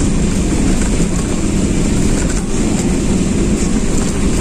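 Steady road and engine noise inside a moving passenger van's cabin, loud and even throughout.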